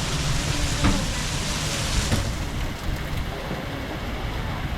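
Heavy rain hissing steadily on the cruise boat, with the boat's engine rumbling low underneath. The hiss eases a little about two seconds in.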